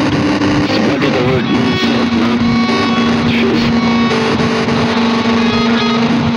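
Rock music with electric guitar, a single note held from about two seconds in.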